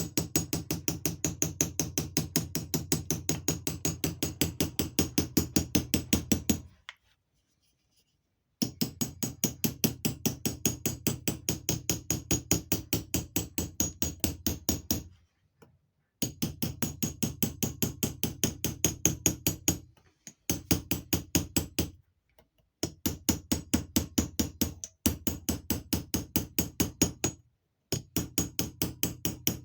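Hammer rapidly tapping a small square punch against the metal of a vintage car's vacuum advance unit, about six light blows a second, in runs broken by brief pauses.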